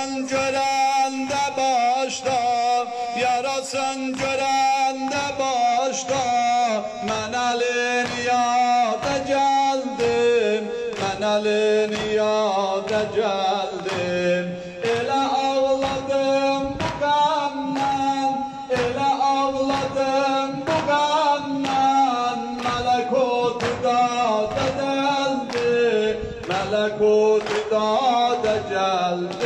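Men singing a Muharram mourning lament (noha) together. Rhythmic unison chest-beating (matam) slaps keep time, about three strikes every two seconds.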